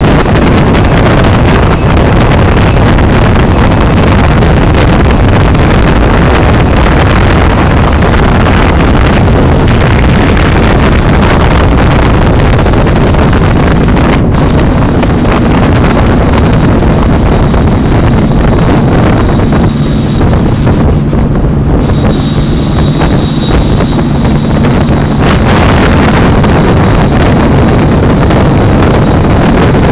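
Loud, constant wind rumble on the microphone over the steady drone of a motorboat's engine under way. A low, even engine hum shows through more clearly in the second half.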